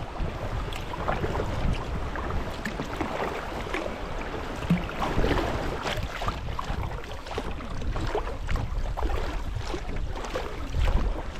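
Kayak being paddled: paddle blades dipping and splashing in the river water at an irregular pace, with wind rumbling on the microphone.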